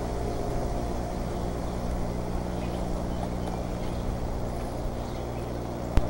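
Steady low hum of several unchanging low tones over a background hiss, with no distinct events.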